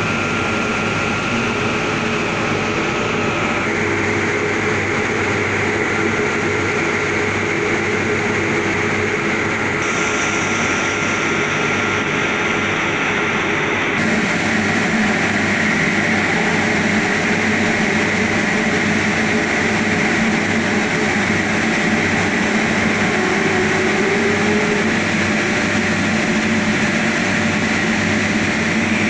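A 2500 vertical glass washing machine running: a steady, dense mechanical hiss over a low hum with a few steady tones. The sound shifts in tone about 4 seconds in and becomes a little louder and brighter about 14 seconds in.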